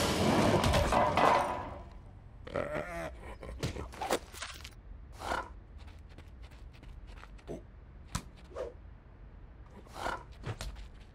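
The end of a cartoon crash: clattering and rattling that dies away over the first two seconds. After it come scattered soft knocks and footsteps, with a few short grunting vocal sounds from the bear character.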